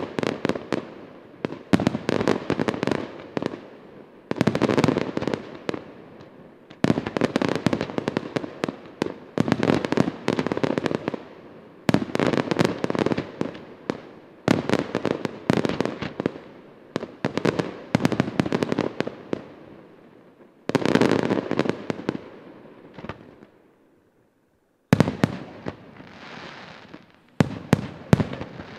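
Aerial firework shells bursting one after another, a loud bang roughly every two to three seconds, each followed by a dense crackle of many small reports that fades away. The bursts stop briefly about four seconds before the end, then start again.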